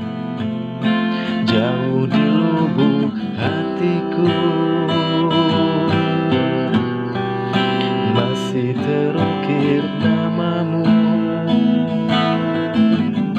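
Carved bamboo acoustic guitar played steadily, strummed and picked chords ringing out as the instrumental introduction to a song.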